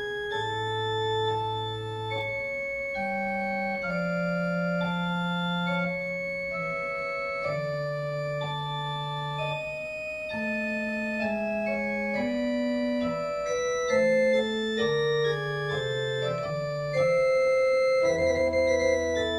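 Organ playing a slow piece in sustained chords, with held notes changing every second or so over a moving lower line. Near the end a deeper bass note comes in and the sound grows louder.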